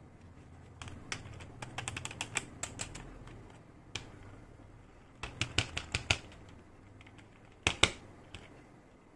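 Small hard toy pieces clicking and tapping together as a miniature toy kitchen set is handled. There is a quick run of clicks in the first few seconds, another cluster about five seconds in, and a sharp double click near the end.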